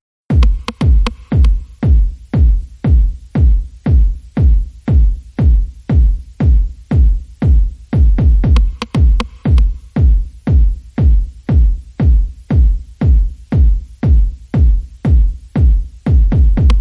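Electronic dance music with a heavy, steady drum-machine kick, about two beats a second, and a hissing high end; it starts abruptly just after the beginning.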